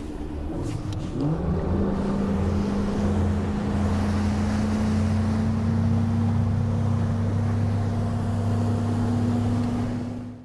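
Bass boat's outboard motor throttling up, its pitch climbing one to two seconds in, then running steadily at speed over a constant rushing noise, with the pitch creeping slowly higher. It cuts off abruptly at the end.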